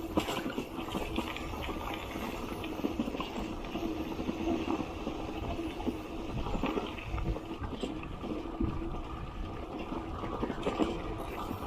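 Bicycle rolling over a bumpy dirt track, with a steady clatter of small irregular knocks and rattles from the bike and its loaded wire front basket over tyre noise.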